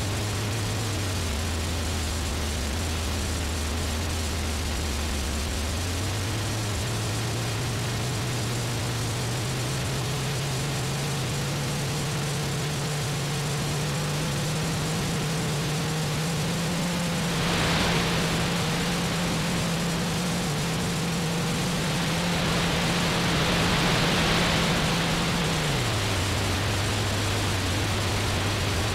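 Experimental electronic noise music from circuit-bent electronics. A low buzzing drone dips in pitch, climbs in steps over the next ten seconds or so, holds, and drops back down near the end, over a constant hiss. Two swells of brighter noise come in the second half.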